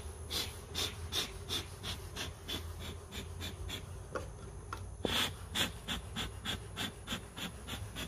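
Bee smoker bellows being pumped in rapid, even puffs, about three a second, to smoke the bees down. A steady low hum lies underneath.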